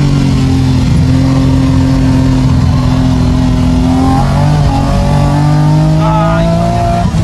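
Race car engine heard from inside the cabin on a fast lap: held at steady revs at first, then climbing in pitch under acceleration, with a brief dip near the end as it shifts up.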